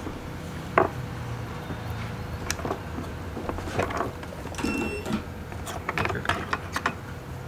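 Hot air rework station blowing on a CPU reballing stencil, its fan whirring steadily as the solder paste is melted into balls, with scattered light clicks and taps.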